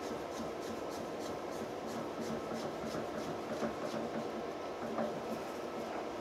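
Small metallic clicks and rubbing as a pointed centre is fitted into a drill-press chuck by hand, over a steady low workshop hum.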